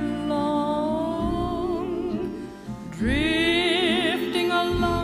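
Music: a slow melody carried in long held notes, with a louder note sung or played with wide vibrato about three seconds in.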